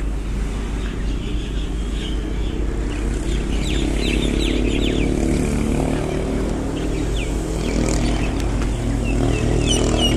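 A vehicle engine running steadily at a low pitch, with birds chirping in short falling calls over it, a cluster of them a few seconds in and again near the end.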